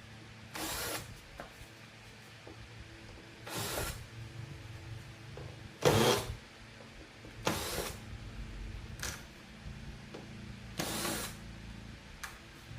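Six short bursts of small tool work, spaced unevenly a second or more apart, over a steady low hum; the loudest burst comes about halfway through.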